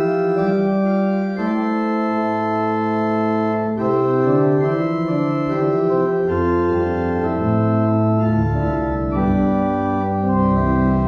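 Pipe organ playing the postlude in slow, held chords, with a bass line coming in about two seconds in and deeper pedal notes joining about six seconds in.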